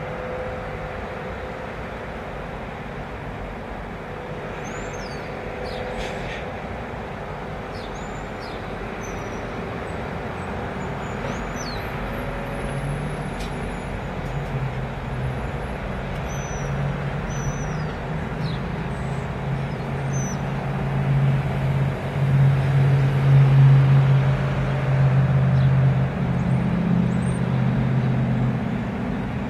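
Steady motor-vehicle noise heard from inside a stationary car, with a low engine rumble that swells through the second half and is loudest a little after the middle. A few faint, short high chirps come and go.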